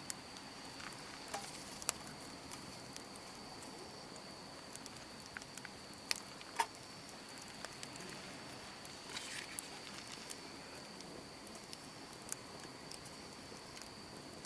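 Campfire crackling: scattered sharp pops and ticks, a few louder ones around six to seven seconds in, over a steady faint high thin tone.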